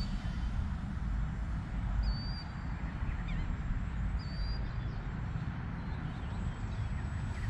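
Wind rumbling on the microphone, with a bird giving a short high call a few times, about two seconds apart.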